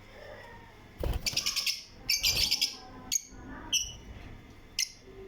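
Caged pet birds chirping: a quick run of high chirps about a second in, then single chirps every half second or so.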